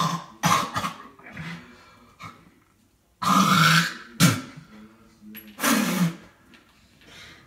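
A person making loud, harsh throat noises in several separate bursts, the longest about three seconds in and another near six seconds.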